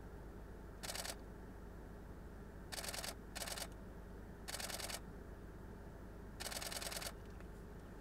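DSLR camera shutter firing in continuous bursts: five quick rattles of several frames each, the last one the longest.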